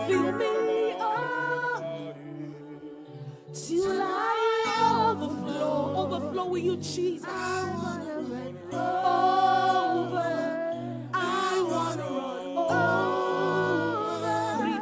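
Church worship team singing a slow worship song over held low accompaniment notes. The sung lines pause and resume, with a softer stretch about two seconds in.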